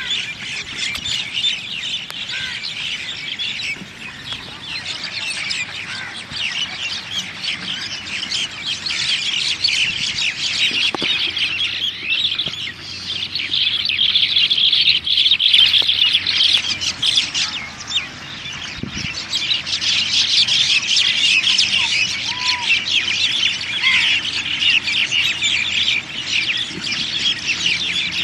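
A dense chorus of many birds chirping and squawking without pause, a busy flock's chatter that swells louder around the middle and again later on.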